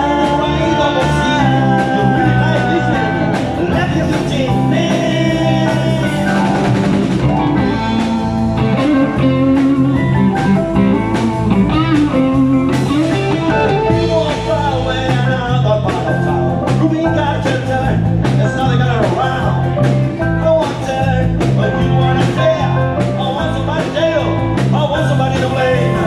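Live amplified blues-rock band playing: electric guitars, bass guitar, drum kit and electric keyboard over a steady beat, with singing and lead lines that bend in pitch.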